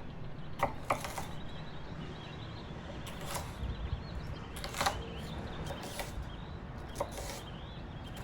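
Scattered sharp clicks and knocks of kitchen utensils handling food, about five in all, over a quiet low room hum, with faint bird chirps in the background.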